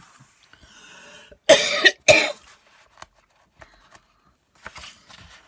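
A person coughing twice in quick succession, two short loud coughs about a second and a half in.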